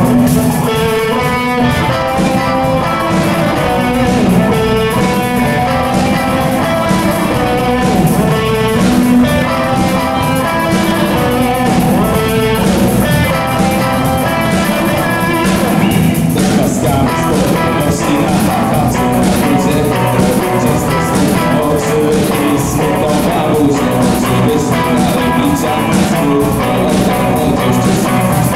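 Live rock band playing: electric guitars, bass guitar and drum kit, going steadily throughout.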